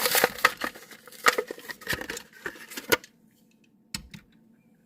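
A Hot Wheels car's plastic blister pack being torn open from its cardboard card: a quick run of sharp crackles and clicks for about three seconds, then a couple of lone clicks about a second later.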